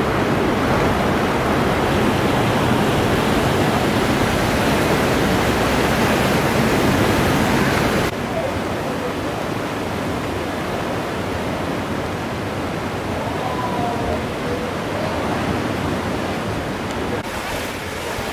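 Steady rushing noise of river floodwater pouring through town streets. It drops abruptly to a quieter, thinner rush about eight seconds in.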